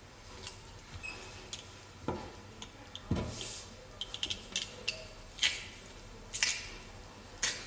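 Stainless steel garlic press crushing garlic cloves: scattered metal clicks and ticks of the hinged handles, a quick run of clicks about four seconds in, short scrapes, and two dull knocks against the wooden table about two and three seconds in.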